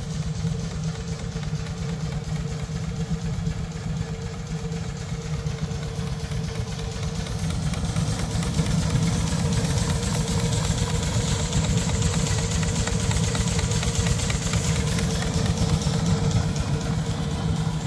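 Small vertical marine steam engine with Stevenson valve gear running steadily: a rapid, even beat over a steady hum.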